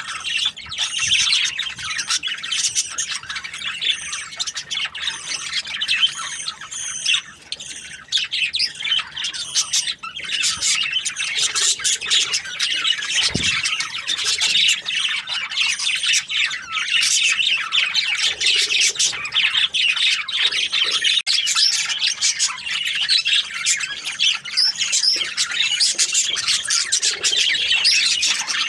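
A flock of budgerigars chattering and squawking continuously, many birds calling at once, with a brief low thump about halfway through.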